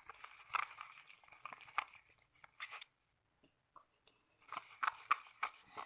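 Slime mixture of white glue, foam and liquid soap being stirred, a run of wet, crackly squishing strokes in two spells with a short pause in the middle.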